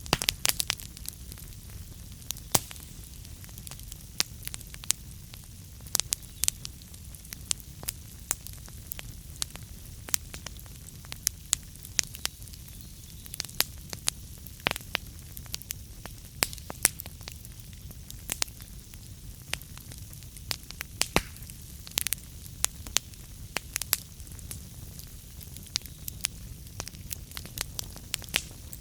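Wood fire burning in a fireplace: a steady low rumble with frequent sharp crackles and pops at irregular intervals.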